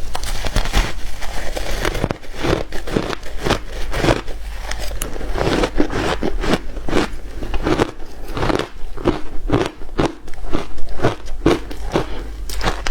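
Hard shaved ice being bitten and chewed close to the microphone: a rapid, irregular run of loud, crisp crunches.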